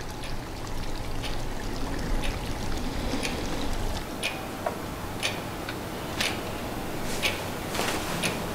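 Sharp, regular ticking, about one tick a second, over a steady hiss of background noise.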